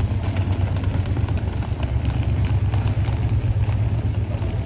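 Busy city street ambience: a steady low rumble of traffic with frequent light clicks over it.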